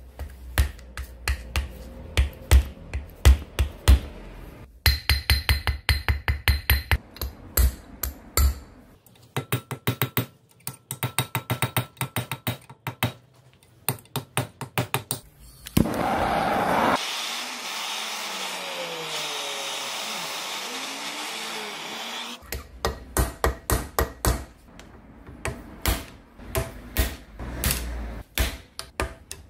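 Hammer blows on a chisel and punch driven against the rusted, notched retaining ring of an old pneumatic jackhammer body to knock the ring loose, in quick runs of several sharp metal strikes a second. In the middle, the blows give way for about five seconds to a steady hiss.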